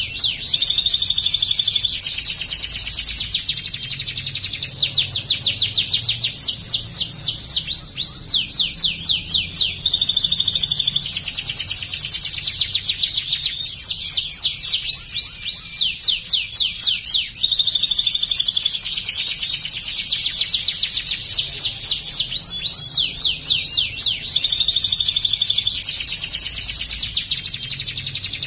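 White canary singing a loud, continuous song of fast runs of repeated down-sweeping notes, phrase after phrase with short breaks every few seconds. The song is trained on bar-winged prinia (ciblek) material, with prinia-like phrases worked in.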